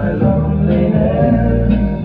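Vintage AMI jukebox playing a record: a song with singing and guitar.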